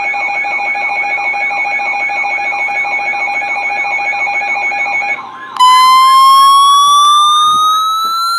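Loud electronic alert tones announcing a weather radio warning. First comes a steady alarm tone with a fast repeating warble through it, which breaks off about five seconds in. After a short dip, a pure tone rises steadily in pitch through the rest.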